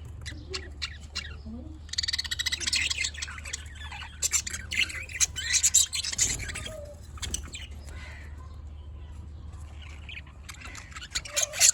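Budgies chirping and squawking in rapid, dense bursts of chatter, with a quieter stretch in the middle.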